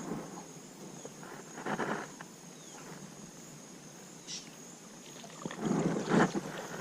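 Quiet outdoor ambience aboard a small fishing boat on a creek: a faint steady high-pitched buzz, with brief soft rustles and knocks about two seconds in and again near the end.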